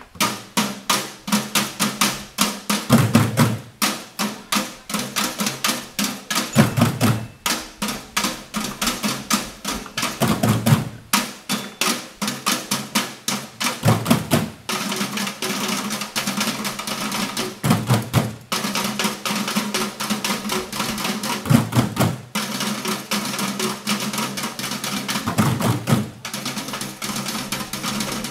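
Percussion ensemble of instruments made from scrap plastic pipes, metal cans and buckets, and wooden xylophones, playing a fast, steady rhythm of many strikes a second. A deep bass hit comes about every four seconds, and the playing grows denser about halfway through.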